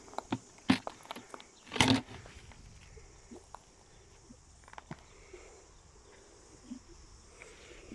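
Footsteps crunching over a beach bed of loose shells, with a few loud crunches in the first two seconds, then quieter, softer steps.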